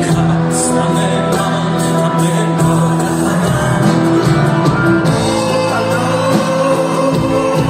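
Live band playing a pop song, with a male singer and electric guitar and keyboards, heard from the audience in a large hall.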